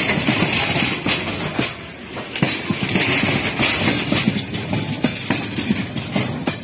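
Covered BCNA freight wagons of an Indian Railways goods train rolling past at close range, their wheels clattering over the rail joints in quick, irregular clacks over a steady rushing noise.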